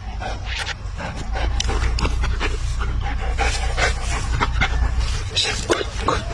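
A dog panting: quick, irregular breaths, several a second, over a steady low rumble.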